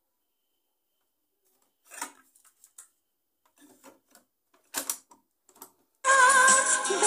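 Mechanical clacks of the Philips RR-498 boombox's cassette deck keys being pressed: one about two seconds in and a louder double clack near five seconds, with faint ticks between. About a second before the end, the cassette playback starts again with a Hindi film song with singing.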